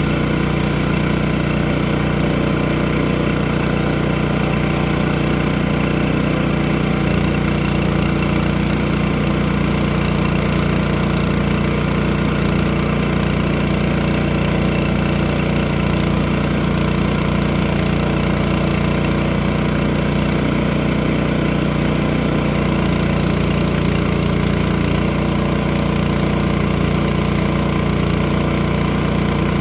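An engine running steadily at a constant speed, with no change in pitch or load.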